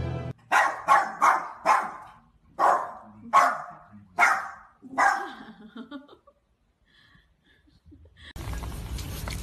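A dog barking: about eight short barks over the first five seconds, then a few seconds of quiet. A steady background noise starts abruptly near the end.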